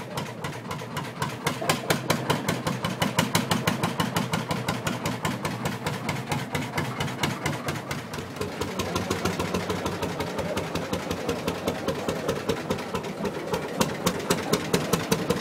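Lanz Bulldog tractor's single-cylinder two-stroke hot-bulb engine running, a rapid, even chug of sharp exhaust beats.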